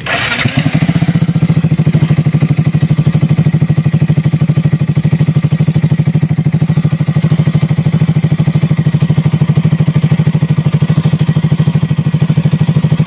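Yamaha R15 V3's single-cylinder engine starting, a short burst as it catches, then idling steadily with an even pulsing beat through its Ronin Black Katana aftermarket exhaust. The exhaust leaks at the joint between the muffler body and its link pipe, which the owner says lets air escape and spoils the sound.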